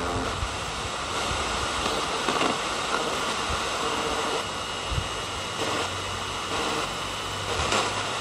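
FM radio static from a small portable G-Track radio's speaker: a steady hiss while the tuning knob is turned between stations.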